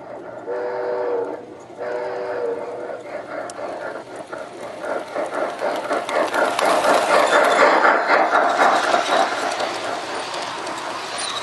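A G-gauge model train. Its locomotive sounds two blasts of a chord whistle in the first few seconds, then the train rolls close past with its wheels clicking over the rail joints, the clatter growing louder and peaking a little past the middle.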